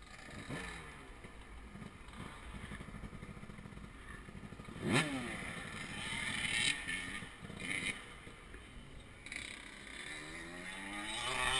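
Dirt bike engines running on a start line, their throttles blipped now and then so that the revs rise briefly. The sharpest rev comes about five seconds in, with more rising revs near the end.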